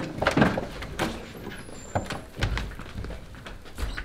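Footsteps and irregular thuds of people walking out through a doorway, with a low bump about halfway through.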